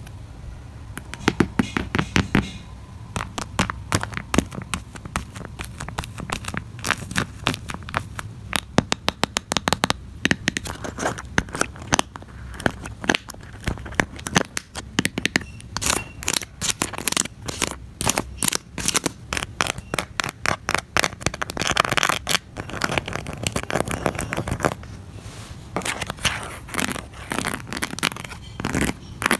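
Fingers and nails handling small fidget-board items on a cardboard board: runs of quick clicks and taps, scratches and crinkles. They include a plastic box's snap cap being opened and stick-on plastic gem stickers being tapped and scratched.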